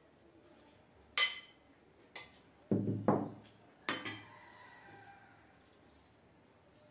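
A metal spoon clinking and knocking against stainless steel plates and bowls during a meal. There is a sharp clink about a second in, a lighter one a second later, a few duller knocks around three seconds, and another clink near four seconds that rings on briefly.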